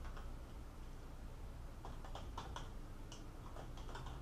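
Faint computer keyboard typing: a scattered run of quick key clicks, busiest in the middle, over a low steady hum.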